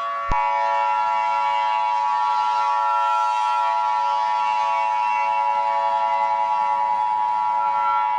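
NOAA Weather Radio warning alarm tone: one steady, unwavering electronic tone that starts abruptly and holds for about eight seconds. It is the alert signal that announces an emergency warning message is about to be read. A fainter steady hum of other tones sits underneath.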